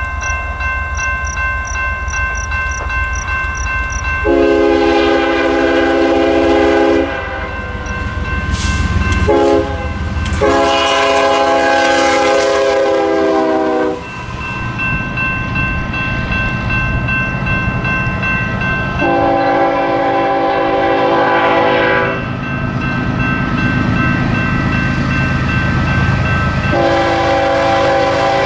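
Nathan Airchime K5HL five-chime air horn on a diesel locomotive, sounding a series of long chord blasts with one short one, over the low rumble of the train.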